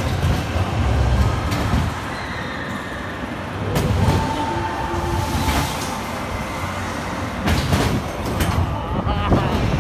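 Spinning mouse roller coaster car running on its track, with a steady rumble and rattling clacks, a brief high squeal about halfway through, and a quick run of ticks near the end.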